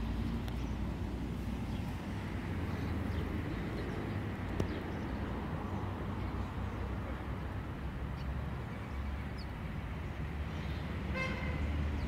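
Steady low rumble of city traffic, with a short vehicle horn toot about a second before the end.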